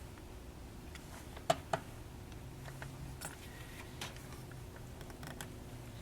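Light clicks and taps of small computer parts being handled, with two sharp clicks close together about one and a half seconds in and scattered softer ticks after.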